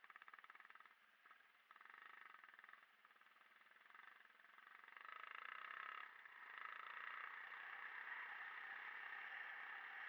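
Faint motorcycle engine running, with a fast pulsing note that grows louder about halfway through and then holds steady.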